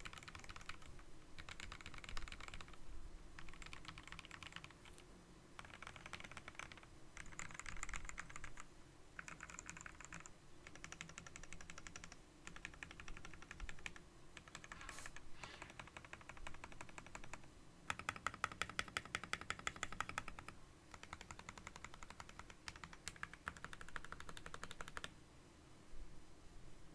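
Typing: runs of rapid keystrokes broken by short pauses, with the loudest, sharpest run about two-thirds of the way through.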